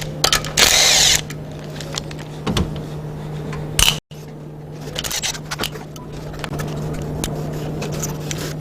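A power tool runs in a short burst about a second in, undoing fasteners on the engine. Clicks and clinks of tools and metal parts follow over a steady low hum.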